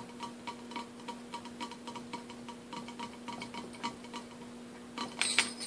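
Fingers tapping rapidly and steadily on the clear body of a cocktail shaker. About five seconds in, the small bells tied to the shaker jingle briefly.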